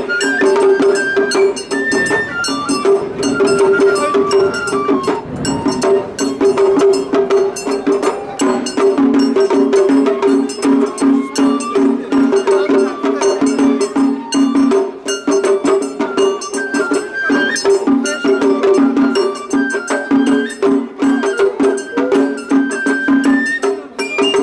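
Japanese festival hayashi music played live: a high bamboo-flute melody over continuous drumming and the clang of a hand gong, in a steady, unbroken rhythm.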